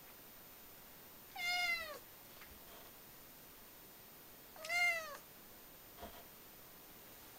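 Nine-month-old flame point Siamese cat meowing twice, about three seconds apart; each meow rises and then falls in pitch.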